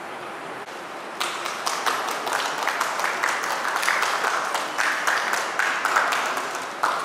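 A small group clapping, the separate claps distinct, starting about a second in and stopping just before the end.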